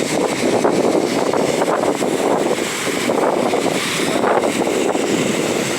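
Loud, steady rush of storm runoff pouring through a flooded street after a heavy downpour.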